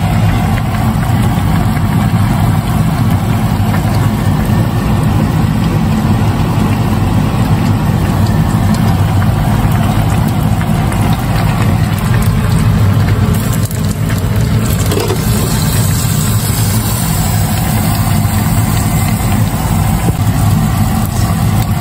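Pot of hot-pot broth boiling on an induction hob, over a loud steady low hum.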